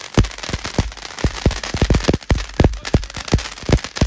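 Vintage Titanic-shaped firework fountain spraying sparks from its funnels: a steady hiss with sharp, irregular crackling pops, about four a second.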